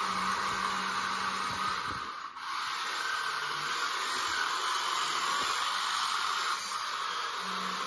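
Small electric motors of a homemade radio-controlled toy tractor with a snow-blower attachment, whirring steadily, with a brief dip about two seconds in.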